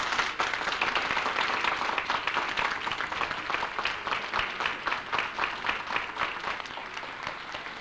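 Audience applauding, a dense patter of many hands clapping that slowly dies down toward the end.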